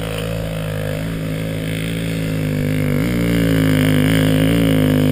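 Dirt-bike engine running steadily at low revs, with small rises in pitch about a second in, around three seconds and near the end, growing slightly louder.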